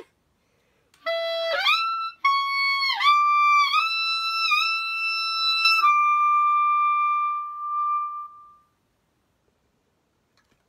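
Clarinet playing a short phrase: it scoops up to a high held note that is bent downward three times, then steps down to a long note that slowly fades out.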